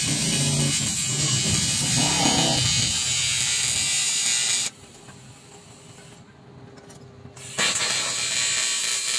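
TIG welding arc buzzing steadily while a torn diesel fuel tank is repaired. The arc cuts out about halfway through and strikes again roughly three seconds later.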